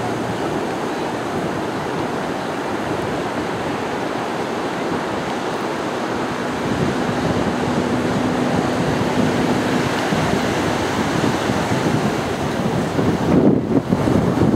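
Heavy wind buffeting the microphone, louder from about seven seconds in and gusting hard near the end. Under it, from about seven to ten seconds in, the faint steady drone of an Extra 300 aerobatic plane's engine flying overhead.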